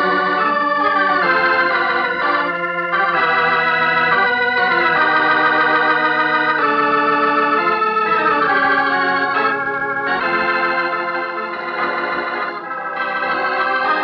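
Organ music playing sustained chords that shift every second or two.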